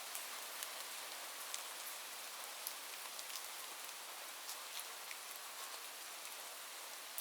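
Light, gentle rain falling steadily, a soft even hiss with scattered individual drops ticking sharply on surfaces.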